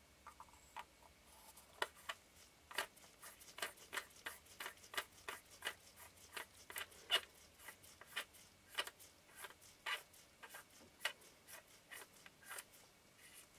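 Faint, irregular small clicks and ticks, a few a second, from the metal rear lens group being turned and threaded into the barrel of a Minolta MC Rokkor-PF 58mm f/1.4 lens by gloved fingers.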